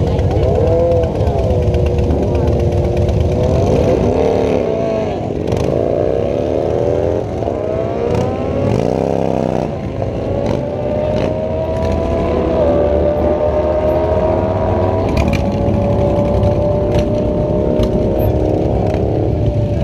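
Drag-racing engines revving up and down repeatedly at the start line, then one vehicle launching and running down the strip, its engine note climbing steadily with a couple of small steps in pitch.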